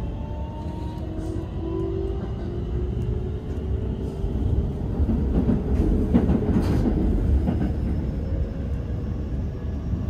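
Electric train running, heard from on board: a steady low rumble with the motor whine slowly rising in pitch as it gathers speed. The rumble and rattle grow louder about five seconds in.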